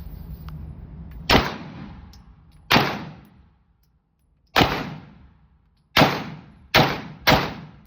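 Six gunshots at an indoor shooting range, fired irregularly with the last three coming closer together. Each crack is followed by a short echoing tail.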